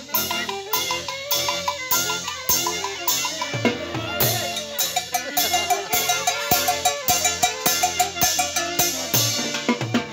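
A live dance band playing loudly: a drum kit keeps a steady beat under a melody line with quick repeated notes.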